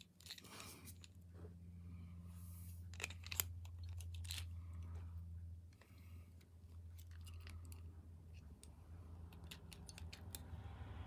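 Scattered small plastic clicks and taps as AAA batteries are pushed into a toy snake's battery compartment and the snap-on plastic cover is fitted and pressed home, over a low steady hum.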